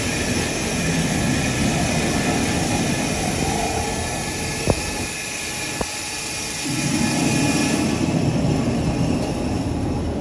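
Foam-cutting machine running steadily, with two short knocks near the middle and the running noise getting louder about two-thirds of the way through.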